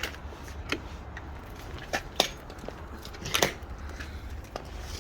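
Hard plastic clicks and knocks of an EV charging plug being handled and pushed against a car's charge port, six or so separate knocks with a double knock about three and a half seconds in, over a steady low hum.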